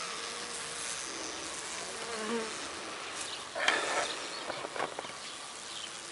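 Honeybees buzzing around an opened hive, a steady hum with one bee passing close about two seconds in; the bees are agitated. A brief rustling noise about three and a half seconds in.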